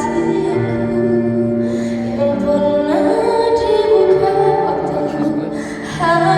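Music with a female voice singing long held notes over accompaniment.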